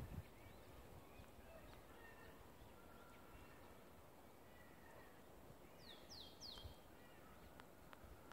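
Faint bird calls: scattered short chirps, with three quick high calls sweeping downward in pitch about six seconds in, and a couple of small clicks near the end.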